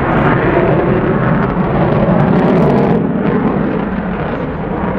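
F-35C Lightning II's Pratt & Whitney F135 jet engine in afterburner, loud continuous jet noise with a burst of crackling about two seconds in, easing slightly after that.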